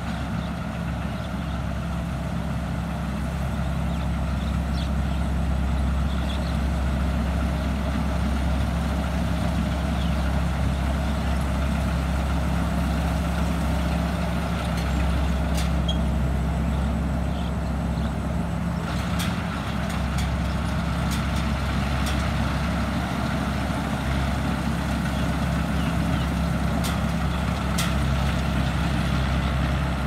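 Tamco All New Pro Z3000 combine harvester running steadily while harvesting rice, its Isuzu 6BG1 six-cylinder diesel and threshing machinery giving a continuous drone that grows a little louder as it comes closer. A few sharp clicks sound in the second half.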